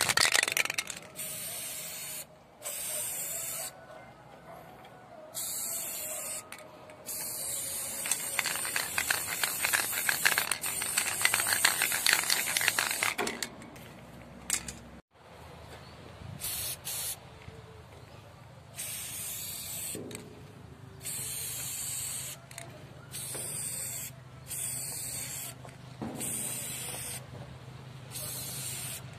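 Aerosol spray paint can hissing in short bursts, on and off, as paint goes onto a car's metal hood, with one longer spray of several seconds in the middle.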